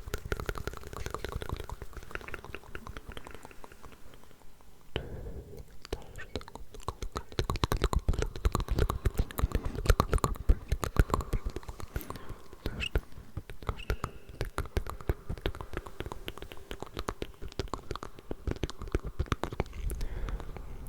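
Several tracks of unintelligible whispering layered over one another, with many wet mouth clicks and smacks close to the microphone. The clicks grow denser and louder for a few seconds partway through.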